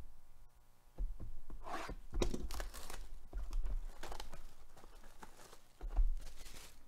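Plastic shrink wrap being torn and crinkled off a sealed trading-card box by gloved hands: a run of crackly rips and rustles starting about a second in, the loudest near the end.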